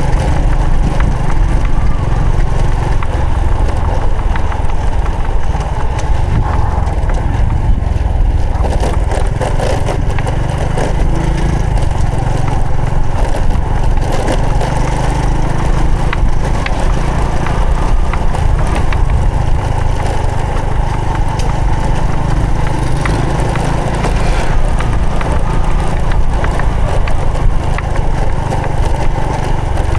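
Honda Supra X 125 FI single-cylinder four-stroke motorcycle engine running steadily while being ridden, with a strong, steady low rumble throughout.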